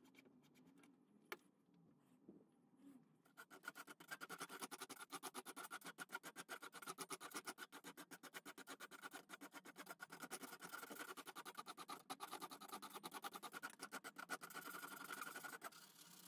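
Hand rasp scraping the end of an ash mallet handle in rapid, even back-and-forth strokes, several a second. The scraping starts about three seconds in, after a few light knocks, and stops just before the end.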